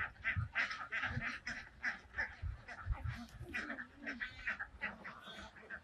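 A flock of domestic waterfowl calling in a rapid, overlapping chatter, several calls a second, with a few soft low thumps in the first half.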